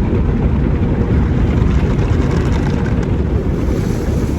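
Automatic tunnel car wash working over the car, heard from inside the cabin as a loud, steady, muffled rumble of water spray and machinery.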